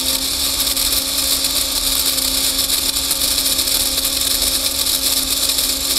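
A small cheap battery-powered electric motor runs steadily at an even pitch, reeling in fishing line under a constant pull that slowly stretches a spring.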